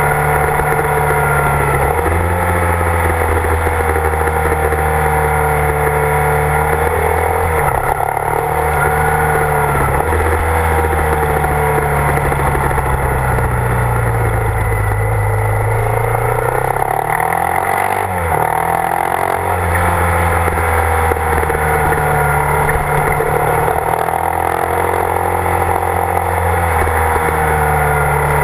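Motorcycle engine running under way, its note rising and falling with the throttle on a winding road, with a long dip and climb in pitch about halfway through.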